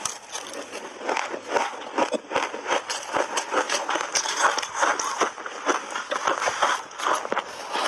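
A person chewing mouthfuls of frozen shaved ice coated in milk powder, with rapid, irregular crisp crunches several times a second.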